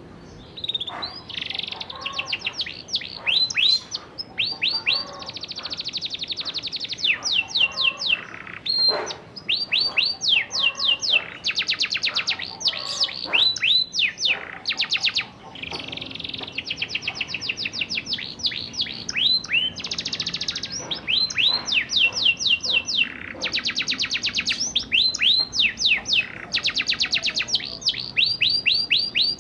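Domestic canary singing a long rolling song: fast runs of high, downward-sweeping notes alternating with rapid buzzy trills, broken by short pauses.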